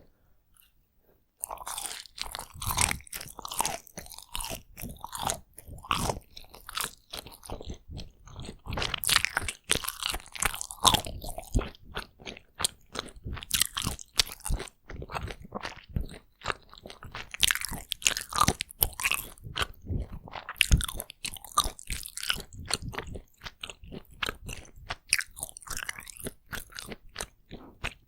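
Takoyaki being bitten and chewed close to the microphone: a dense, continuous run of chewing and mouth clicks that starts about a second and a half in.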